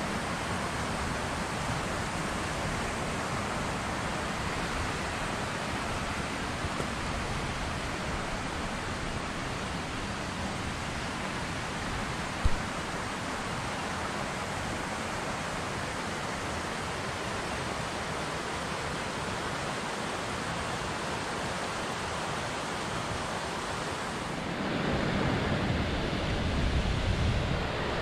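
Mountain creek rushing over rocks: a steady wash of water noise. About halfway through there is a single short click, and near the end the sound turns deeper and duller.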